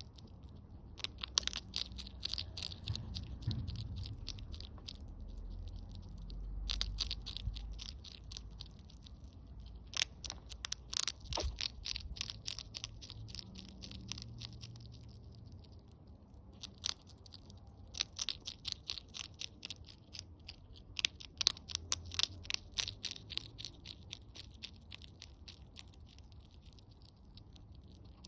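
Hedgehog eating, crunching its food with rapid snapping bites in runs of a few seconds broken by short pauses.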